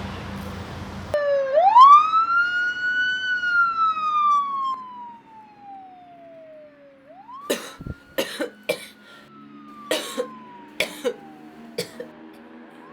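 Emergency siren wailing: the tone rises sharply, then slides slowly down, in two sweeps. Several short sharp bursts come over the second sweep.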